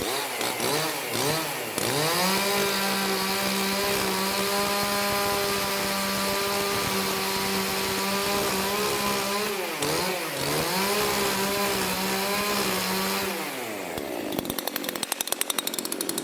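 Chainsaw revved in a few short blips, then held at a steady high speed while cutting into a wood log, easing off briefly about ten seconds in. Near the end it drops back to a fast, even putter at idle.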